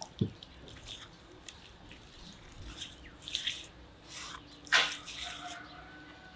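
Hands rubbing and patting a spice rub into a large raw cut of lamb on a wooden board: irregular wet smacks and squelches of palms on meat, the loudest a little under five seconds in.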